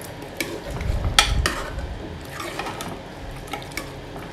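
Metal spoon stirring a thick curry of chickpeas and vegetables in a pressure cooker pot, the spoon scraping and clinking against the pot's side several times.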